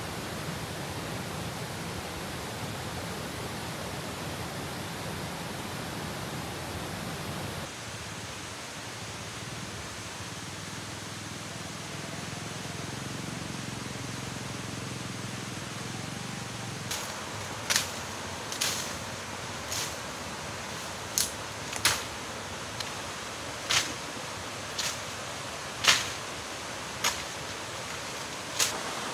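Steady rushing forest background noise. From about halfway through comes a string of sharp snaps, roughly one a second, as undergrowth is broken by hand.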